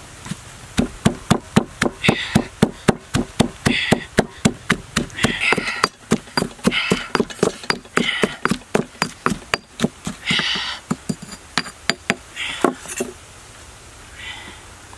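Stone pestle pounding red chilies in a heavy stone mortar, about four rapid hard strikes a second, grinding them into a chili paste. The pounding stops about two seconds before the end.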